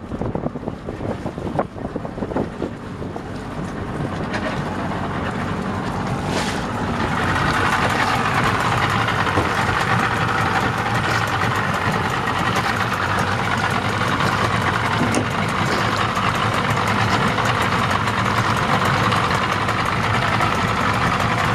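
Outboard motor running steadily. It grows louder over the first several seconds, then holds an even, unchanging drone.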